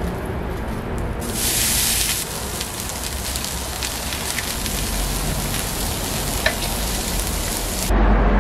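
Butter sizzling on a hot flat steel griddle, with an egg and bean sprouts frying in it; the sizzle flares louder for about a second a little over a second in. In the last half second it gives way to a low street rumble.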